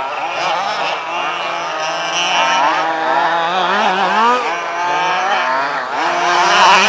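Small two-stroke petrol engines of 1/5-scale HPI Baja RC buggies racing. Several engines overlap, their revs rising and falling rapidly as the buggies accelerate and back off.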